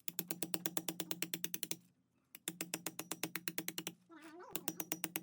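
A motor-driven mechanism running in short bursts with a steady hum and a rapid, even clicking of about ten clicks a second, stopping briefly twice. About four seconds in, between bursts, there is one short wavering cry.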